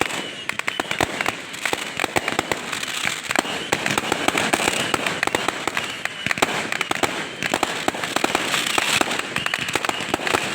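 Fireworks and firecrackers going off in a dense, continuous run of sharp cracks and pops, many every second.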